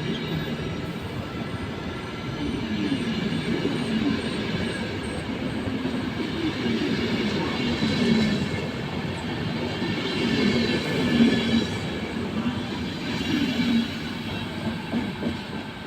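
Passenger train hauled by a Siemens Vectron electric locomotive pulling out of a station: steady rolling rumble of wheels on rail with high-pitched wheel squeal running through it.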